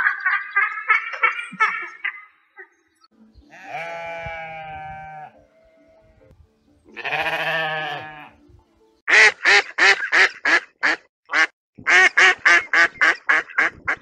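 Several animal calls in turn. First a falcon's rapid repeated calls fade out, then a mouflon gives two long bleats. Near the end a greylag goose gives a fast series of short honking calls, about three a second.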